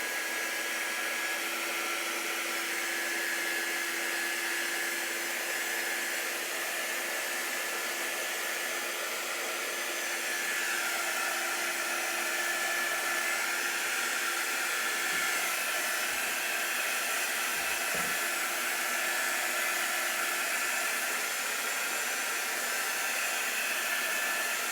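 Chalk Couture handheld drying tool, a small electric blower, running steadily to dry freshly applied chalk paste on a board.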